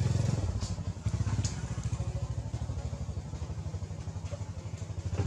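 A small engine running at idle with a fast, even, low throb, easing slightly about half a second in, with a couple of faint clicks in the first two seconds.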